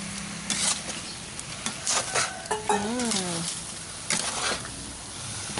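Sliced bitter melon stir-frying in a metal wok: a steady sizzle, with the metal spatula scraping and knocking against the pan several times as the slices are tossed.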